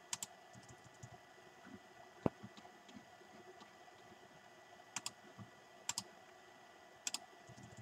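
Sparse clicks of a computer mouse and keyboard over faint room noise: a few scattered single clicks in the first half, then three quick double clicks about a second apart.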